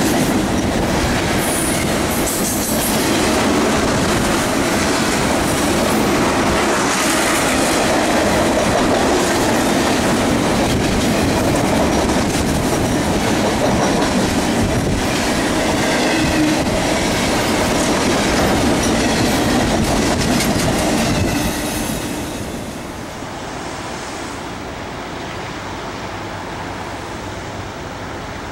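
Freight train of loaded waste-container cars rolling past at close range: a continuous rumble and clatter of wheels on rail, with a faint wheel squeal at times. About three-quarters of the way through the noise falls away to a quieter steady hiss.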